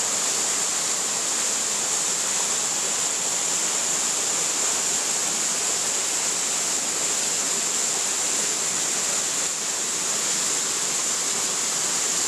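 Steady rushing of water in a rocky forest stream, even and unbroken, with a constant high hiss on top.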